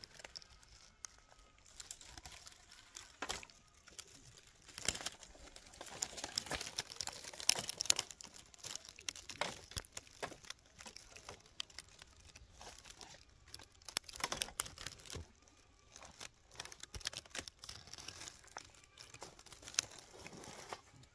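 Irregular crackling and rustling, made of many small sharp clicks and crunches at an uneven level.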